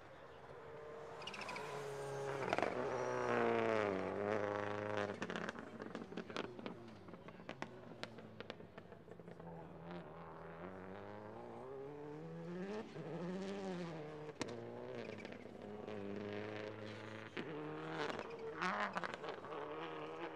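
Rally car engine revving hard through the gears, its pitch climbing and then dropping at each gear change, with sharp cracks and pops in between. Loudest a few seconds in, then running on farther away.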